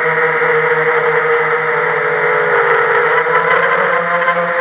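Quadcopter's electric motors and propellers whining steadily, heard from the camera on board; the pitch sags slightly about three seconds in and climbs back near the end.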